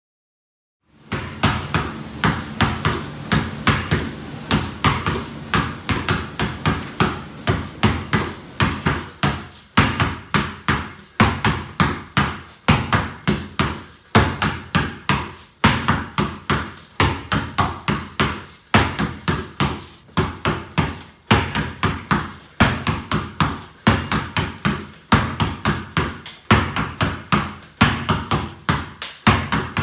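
Basketball being dribbled rapidly and steadily on a hard concrete floor, several bounces a second, starting about a second in.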